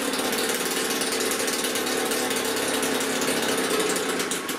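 Malaguti Centro's Minarelli two-stroke engine running at raised revs with a steady, fast, loud buzz, freshly repaired after a piston seizure, with its exhaust leaking at the manifold seam. Right at the end the revs fall away and the engine settles much quieter.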